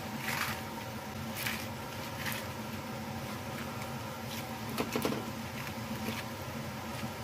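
Leafy greens rustling as a hand pushes them down into a steel pot of water on a gas stove: a few short rustles and a soft knock about five seconds in, over a steady background hum.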